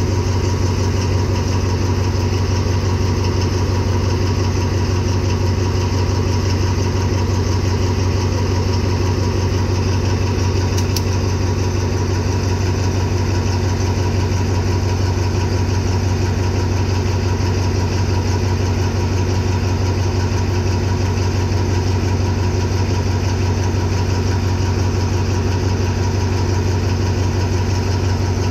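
Alstom diesel-electric locomotive 4226 idling steadily, a low, even engine hum that holds throughout.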